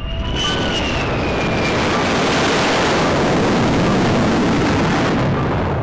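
F-35 Lightning II fighter jet's turbofan engine as it passes low: a high whine gliding down over the first two seconds over a loud, steady rushing noise, which fades near the end.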